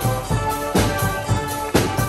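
Schalmeien band playing: held chords from the multi-tube reed horns over drum strokes.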